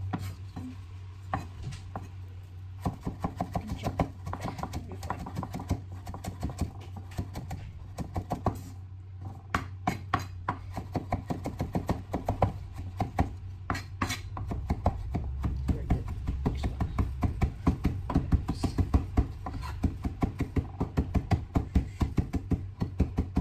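Chef's knife chopping fresh rosemary on a wooden cutting board: rapid, even taps of the blade against the board, with a few short pauses, over a steady low hum.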